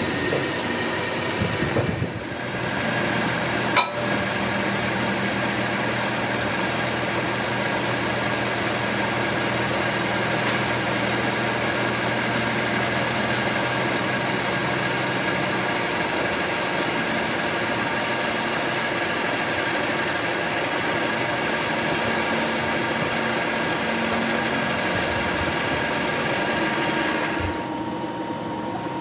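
Metal lathe running steadily with a constant machine hum, with one sharp click about four seconds in. The hum drops slightly near the end.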